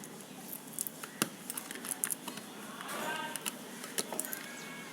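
Scattered light clicks and taps of earphone packaging and plastic parts being handled.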